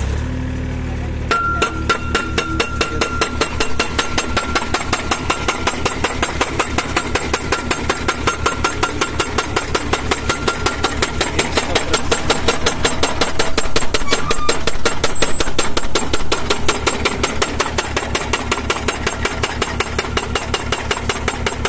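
Hydraulic guardrail pile driver hammering a steel crash-barrier post into the ground. The machine's engine is running; about a second in, a long, fast, even run of metallic hammer blows starts and keeps on, a little louder past the middle.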